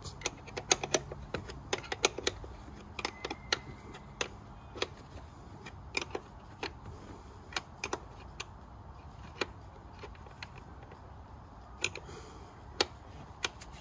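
A 10 mm spanner tightening the nut on a car battery's hold-down clamp: a run of sharp, irregular metal clicks, close together for the first several seconds, then only a few, spaced apart, near the end.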